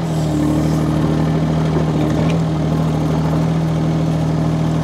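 UHI UME12 mini excavator's three-cylinder Yanmar diesel running steadily while the machine moves around.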